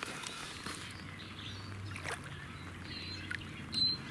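Shallow lake water sloshing and lapping around a common carp held in the margin for release, with a few small knocks and a short high-pitched sound near the end.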